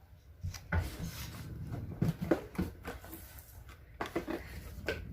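Packaging being handled and opened by hand: rustling and scraping with several sharp clicks and knocks.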